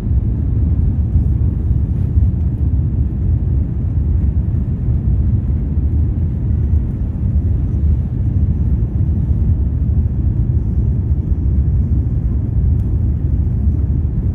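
Steady low rumble of an Airbus A350's Rolls-Royce Trent XWB engines and airflow heard from inside the passenger cabin during takeoff.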